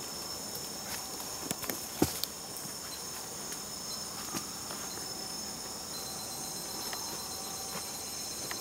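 Wild Bornean orangutan sneezing: one short, sharp burst about two seconds in, with a few faint snaps around it, over a steady high drone of rainforest insects.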